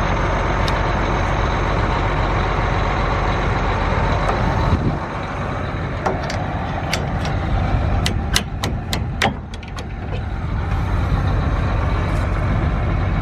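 Farm tractor engine running steadily. It eases off partway through while a string of sharp metallic clanks sounds, then the engine rises again.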